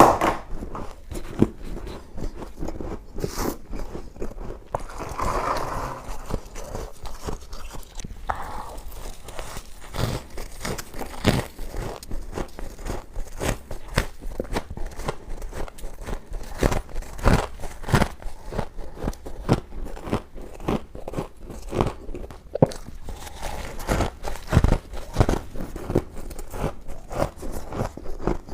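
Close-up bites and chewing of squeaky freezer frost ice: a dense run of sharp, irregular crunches.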